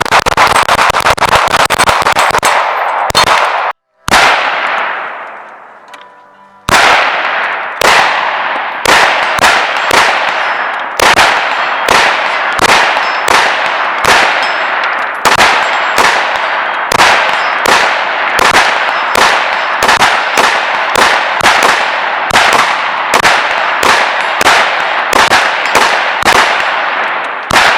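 Rifle fire from an AR-15, shots in quick succession with steel targets clanging and ringing; a single shot about four seconds in rings out for two seconds, then shots follow steadily about every half second.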